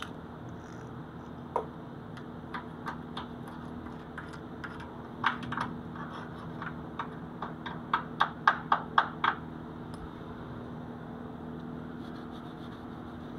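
Light metal taps and clicks on a steel frame after a stick weld, scattered at first and then a quick run of about four a second near the end, over a steady low machine hum.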